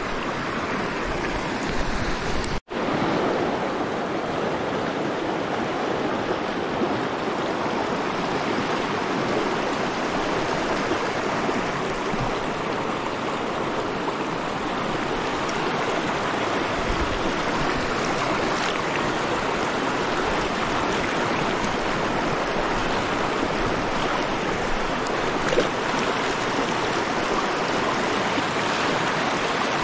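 River water rushing steadily over rocks through a shallow riffle and small rapid, an even continuous rush. It cuts out for an instant about three seconds in.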